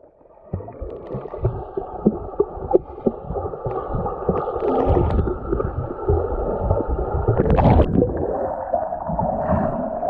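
Swimming-pool water heard from underwater: muffled bubbling and gurgling of exhaled air, with many small knocks over a steady drone. A louder rush of bubbles and water comes about three-quarters of the way through.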